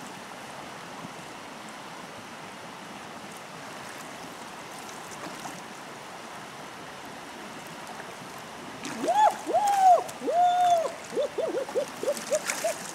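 Steady rush of a flowing river. About nine seconds in, a series of loud high cries that rise and fall in pitch breaks in, turning into quicker short cries near the end.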